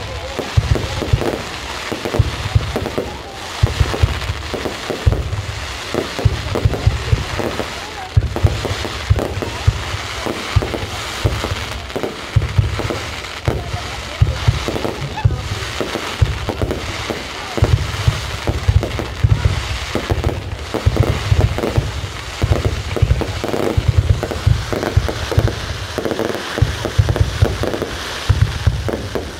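Aerial fireworks display: a continuous barrage of shells bursting, with booms coming several times a second and a dense high crackle over them.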